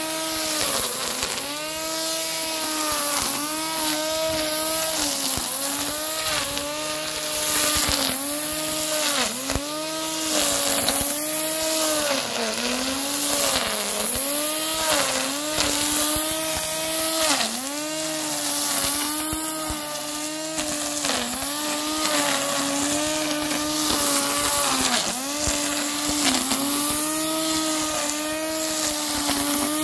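Parkside PRT 550 A3 electric grass trimmer's 550-watt motor running with its twin nylon line whirring; the pitch sags briefly and recovers every second or two as the line bites into the grass.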